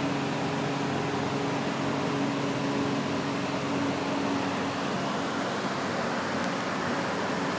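Electric masala pulveriser (spice grinding machine) running steadily: a constant motor hum under an even whirring, grinding noise.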